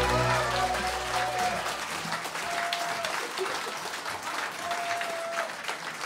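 The last chord of a folk song dies away over the first second or so, and audience applause takes over, a steady patter of clapping that slowly fades.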